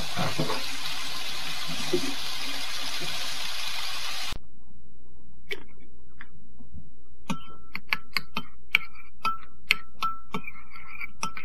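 Sliced pork sizzling in a frying pan, a steady hiss that cuts off abruptly about four seconds in. After a short quiet stretch, a metal spoon clinks and scrapes against a porcelain bowl while stirring sauce, in a run of sharp ticks, some ringing briefly.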